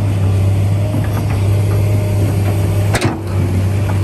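An engine running steadily with a low hum, with a few light clicks and one sharp knock about three seconds in.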